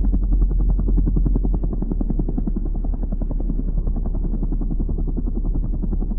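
Background music with a steady bass and a dense, quick pulse.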